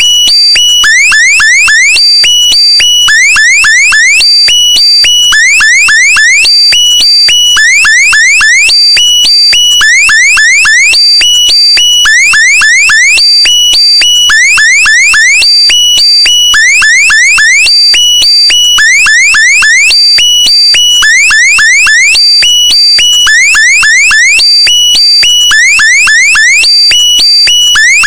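Looped electronic meme sound effect: a loud, alarm-like group of several quick rising chirps, repeating about once a second.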